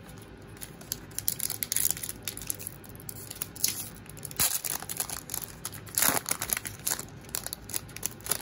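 Shiny wrapper of a baseball card pack crinkling and tearing as it is ripped open by hand, a run of crackles with the loudest rips around the middle.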